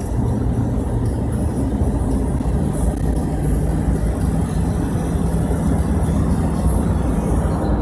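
Car driving at road speed, heard from inside the cabin: a steady low engine hum and tyre rumble.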